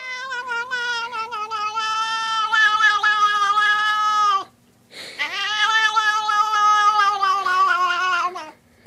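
A domestic cat giving two long, drawn-out weird meows of about four seconds each, with a short pause between them; the pitch sinks slightly through each call and drops at its end.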